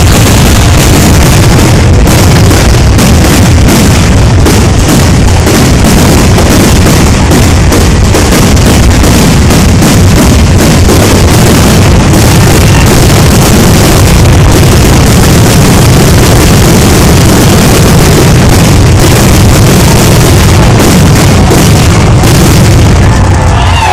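Aerial fireworks going off in a continuous rapid barrage of shell bursts over a deep rumble, so loud that the recording is clipped and distorted throughout. The barrage eases off just before the end.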